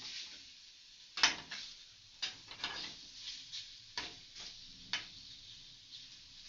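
Bacon frying in a pan: a faint, steady sizzle with a handful of sharp clicks or pops, the loudest a little over a second in.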